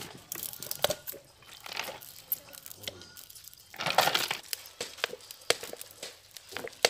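Fish sauce squeezed in spurts from a plastic bottle into a jar of shelled rice-field crabs, the liquid splashing in two or three short bursts, with light clicks and clinks of the bottle and jar. It is the brine being poured to cover the crab meat for a quick pickle.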